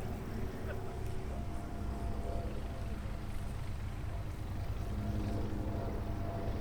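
Light propeller aircraft engine running with a steady drone over a low rumble.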